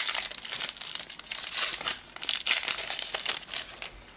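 Foil wrapper of a Panini Adrenalyn XL trading card booster pack crinkling and tearing as it is handled and opened, a dense irregular crackle that dies away near the end.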